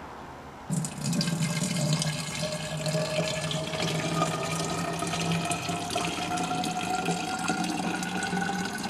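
Water poured from a plastic pitcher into the filler neck of an HHO generator's reservoir. It starts about a second in and pours steadily, with a tone that rises slowly as the reservoir fills.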